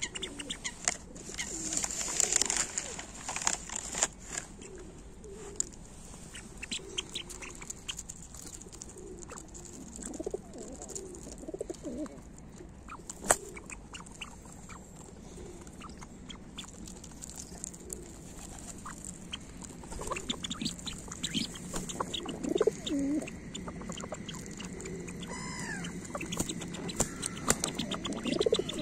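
Feral pigeons cooing in low, wavering calls, with scattered sharp taps throughout.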